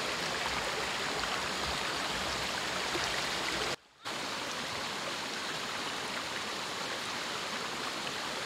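Shallow rocky stream rushing over small cascades, a steady hiss of running water. The sound drops out for a split second about four seconds in.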